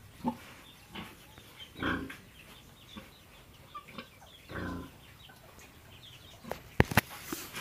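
Pig giving a few short grunts a second or two apart, then several sharp knocks close together near the end.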